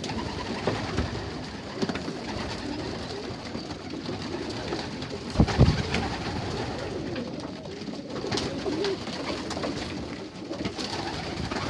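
A loft full of young racing pigeons cooing continually, with one brief loud thump about five and a half seconds in.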